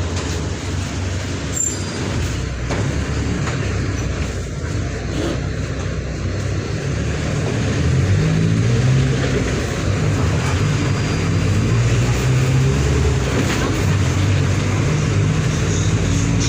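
Diesel engine of a Mercedes-Benz OF 1722M bus running under way. It grows louder and pulls harder about halfway through, as the bus accelerates.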